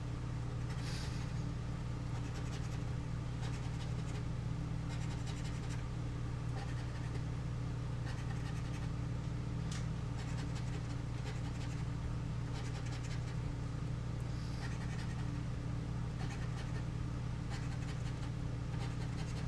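Scratching the coating off a scratch-off lottery ticket in short runs of quick strokes, with pauses between, over a steady low hum.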